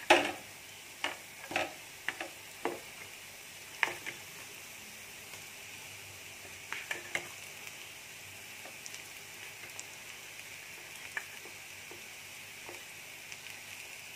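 A spoon stirring the potato and onion stuffing in a pan of hot oil, with a steady low sizzle under it. Sharp knocks of the spoon against the pan come in a cluster in the first four seconds, and a few more come around seven seconds in.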